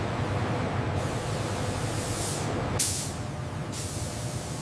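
Factory machinery ambience: a steady low hum under a constant hiss, with a short, sharper hiss breaking in a little under three seconds in.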